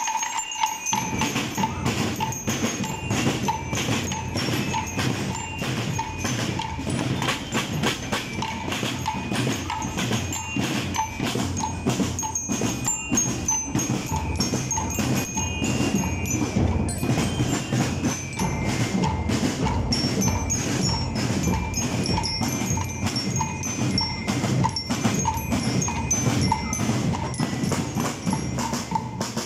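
Marching-band percussion: snare drums and bass drums playing a fast, steady march beat. A high, bell-like tune of metal bars rings over the drums.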